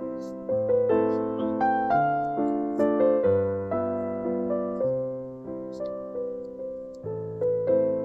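Background music: a slow piano melody of struck notes that ring and fade.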